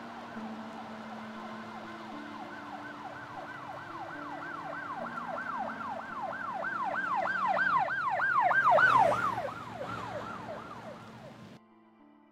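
Emergency-vehicle siren in a fast yelp, about three wails a second. It swells to its loudest about three-quarters of the way through, then falls away and cuts off suddenly near the end.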